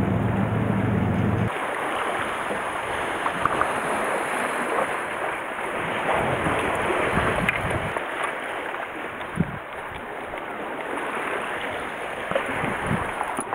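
A ferry's engine drones low and steady for about the first second and a half, then stops abruptly. After that, wind buffets the microphone and sea water washes among the breakwater's tetrapods, with a few light knocks.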